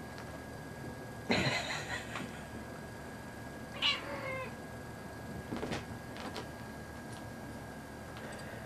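A cat meows twice: a short call about a second in and a falling one around four seconds. A few faint taps follow.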